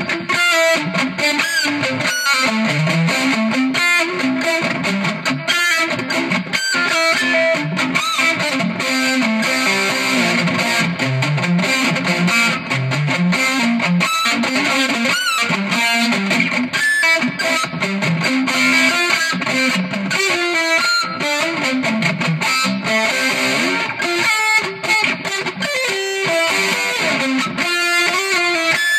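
Electric guitar played without a break: a continuous stream of notes stepping up and down, picked through an amplifier with some effects.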